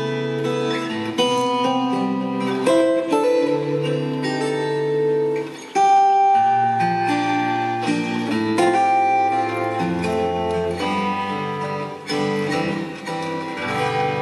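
Solo fingerstyle acoustic guitar playing a slow melody with picked notes over long-held bass notes, with a short break and a strong accented chord about six seconds in.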